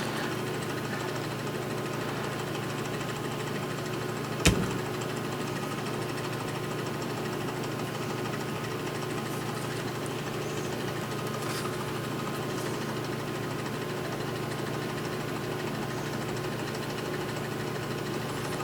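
Steady machine hum with a constant low drone and a faint steady tone above it, broken by a single sharp click about four and a half seconds in.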